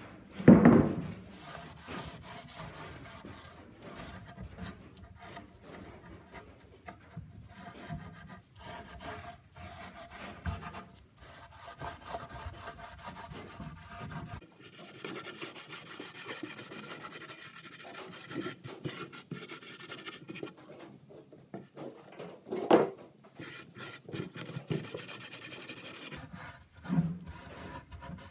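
Rag rubbing and scrubbing over a rough reclaimed wooden slab while wiping it down with mineral spirits. A knock sounds about half a second in and another around twenty-three seconds; the first is the loudest sound.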